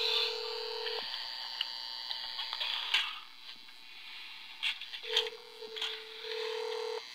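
Telephone ringback tone of a call ringing out down a phone line, over line hiss with a few clicks. One ring ends about a second in, and the next starts four seconds later and lasts about two seconds.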